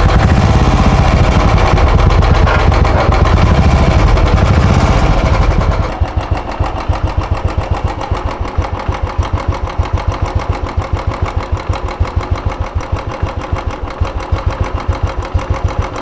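Royal Enfield motorcycle engine running just after starting, loud and revved for about the first six seconds, then dropping to a steady idle with an even beat.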